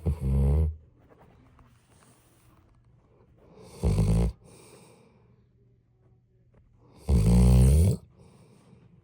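Snoring: three snores about three and a half seconds apart, the last the longest at nearly a second, with quiet breathing between them.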